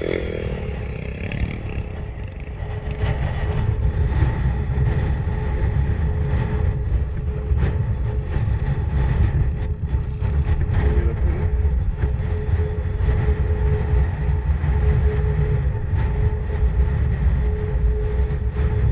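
Motorcycle running under way on a dirt trail: a steady engine hum over a heavy, uneven low rumble.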